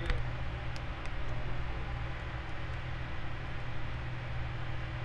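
Steady low hum under a noisy background, with a few faint light clicks in the first second or so as a thin blade or pick works along the edge of a phone's back panel.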